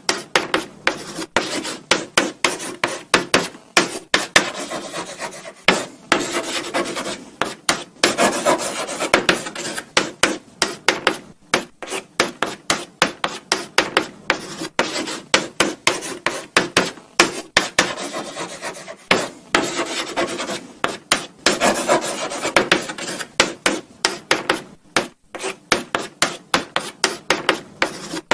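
Chalk writing on a blackboard: a steady run of short scratching strokes with brief pauses between words, now and then a longer rubbing stroke.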